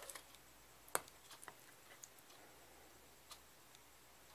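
Near silence with a few faint ticks and one sharp click about a second in, from a serving spoon touching the baking pan as it scoops a piece of meat in thick sauce.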